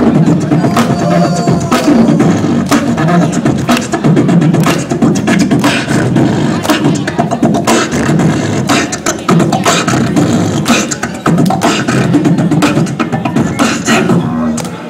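Beatboxing into a handheld microphone: a steady beat of sharp percussive hits about twice a second over a continuous low hummed bass line, amplified and loud.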